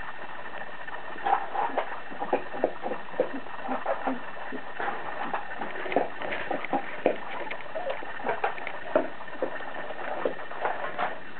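Mother Labrador eating dry food, her chewing making irregular crunches and cracks, a few a second.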